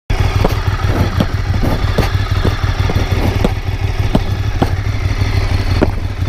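Ducati 848 Evo's L-twin engine running steadily at idle, with boot footsteps on pavement landing about every half second.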